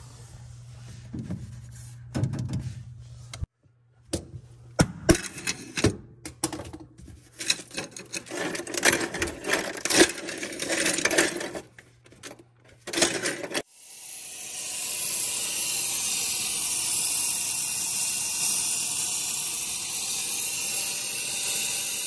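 Slabs of built-up ice in a freezer clinking and knocking as they are broken loose and lifted out. About 14 s in, a steamer's steady hiss starts as steam is blown into the freezer's clogged evaporator drain.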